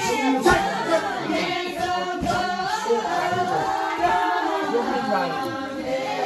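A group of people singing together in chorus, voices only, many pitches overlapping.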